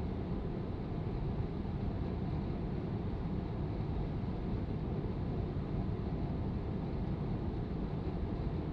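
Furnace blower fan running steadily, a low even rush of air. This is the fan-only cooling cycle a furnace runs after being powered back up, to make sure the heat exchanger is not too hot before the heating cycle starts.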